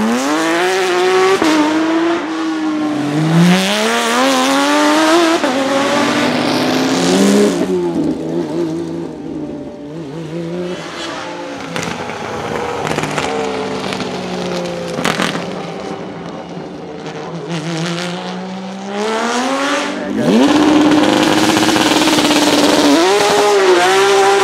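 Porsche 911 racing cars' 4.0-litre flat-six engines (991 RSR GTE and GT3 Cup) running loud at full throttle, the pitch climbing and dropping again and again as they shift up through the gears. There is a quieter, steadier stretch in the middle, then a sharp rev climb about twenty seconds in.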